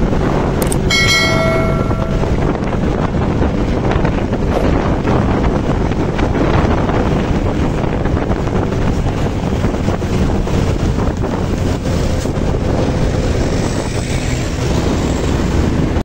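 Wind buffeting the microphone over the steady rumble of passing road traffic. A couple of clicks and a short pitched tone about a second in.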